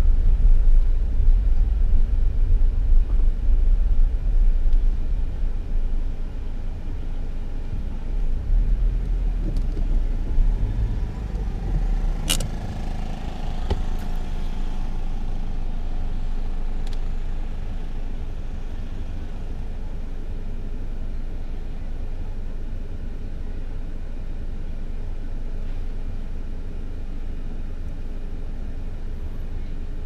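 Car interior road noise while driving: a steady low rumble of engine and tyres heard inside the cabin, heavier for the first dozen seconds and then steadier and softer. A single sharp click about twelve seconds in.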